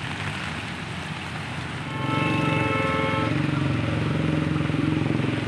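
Steady traffic noise, then a motor vehicle engine running loud and close from about two seconds in, with a horn sounding for about a second as it comes in.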